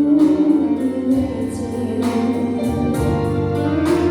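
A pop song: a girl's solo voice holds a long note over instrumental backing, then the accompaniment carries on between sung lines.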